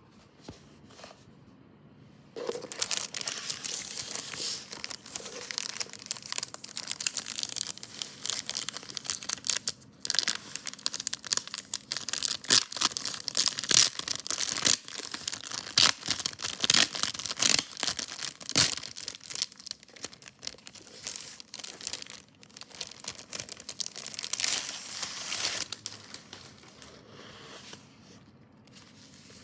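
Packaging crinkled and torn by hand while an LP album is unwrapped: a long run of quick, loud crackles and rips that starts a couple of seconds in and dies away near the end.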